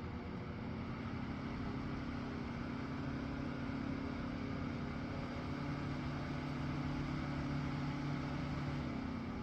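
Portable evaporative air cooler with twin fan motors running: a steady motor hum over rushing air. A second, lower hum joins about halfway through and drops away near the end.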